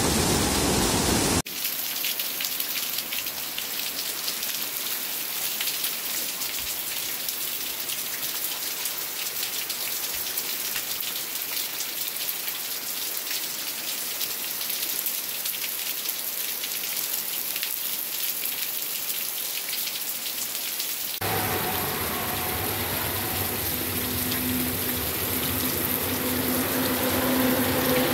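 Heavy rain falling steadily, an even hiss of drops on the ground and leaves. It opens with a short burst of floodwater rushing over a dam spillway that cuts off about a second and a half in. A fuller rain sound takes over about 21 s in, with a low steady hum under it near the end.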